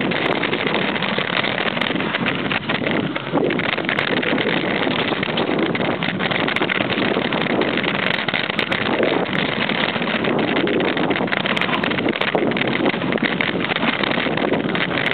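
Wind rushing over the microphone and tyre noise of a mountain bike riding a dirt trail, a steady noisy rush that eases briefly about three seconds in, with scattered small clicks.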